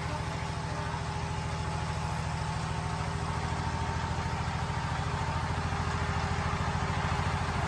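A small engine running steadily at idle, with a rapid, even beat.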